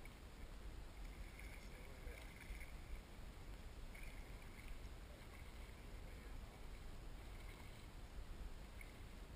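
Faint outdoor ambience over open water: a low wind rumble on the microphone with soft water sounds, and faint high sounds that come and go.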